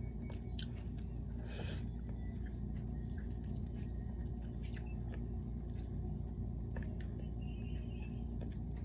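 A person chewing a mouthful of biryani eaten by hand, with wet mouth clicks and smacks. A steady low hum lies under the chewing and is the loudest part throughout.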